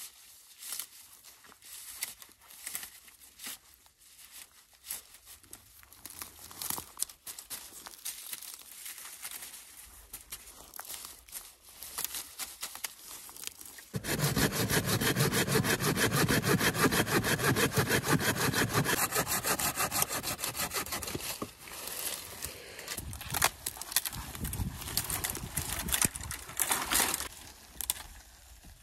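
Dry reed stems rustling and crackling as they are pushed into a reed thatch. About halfway through, a loud, steady, rapid rattling starts suddenly and runs for about seven seconds, followed by scattered cracks and rustles of dry brush.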